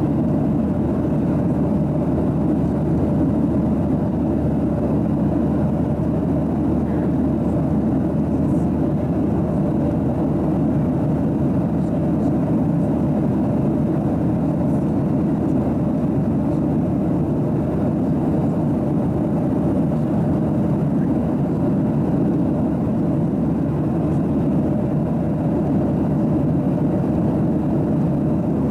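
Steady cabin noise of a Boeing 737-800 in cruise, the mix of its CFM56-7B turbofans and the airflow over the fuselage heard from inside the cabin. It runs as an even low rush with a faint steady hum through it.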